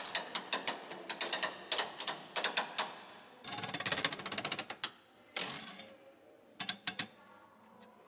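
Rapid mechanical clicking in bursts: runs of sharp clicks several times a second through the first three seconds, a dense clatter around the middle, and a few separate clicks near the end.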